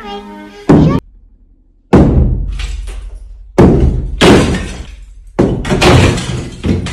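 A series of about six heavy crashes a second or so apart, each trailing off with a rattling decay: a thin partition wall being smashed through.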